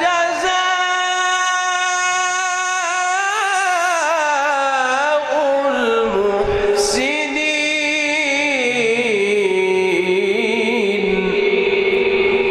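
A male Quran reciter's voice holding one long, ornamented note in melodic recitation, the pitch winding downward and then settling into a steady held tone for the second half.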